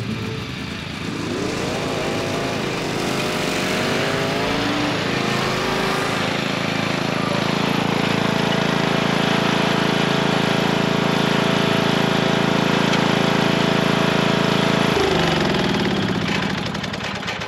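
Riding lawn mower's 14.5 hp Briggs & Stratton engine on a 2001 MTD, revving up as the mower pulls away, then running steadily at speed. Its pitch drops about fifteen seconds in as it is throttled back.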